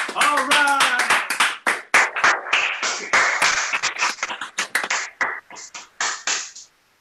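Applause: rapid hand clapping with a whooping cheer in the first second. The clapping thins out and stops shortly before the end.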